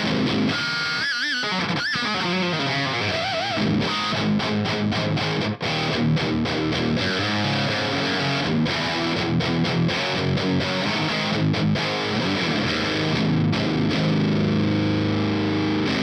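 Heavily distorted seven-string electric guitar tuned to drop G sharp, played through a modified Marshall JCM 900 SL-X 50-watt tube head with EL34s and a 4x12 cabinet, playing heavy metal riffs. A couple of high squealing notes with vibrato come about a second in, then tight muted chugs, and a held chord that cuts off at the end.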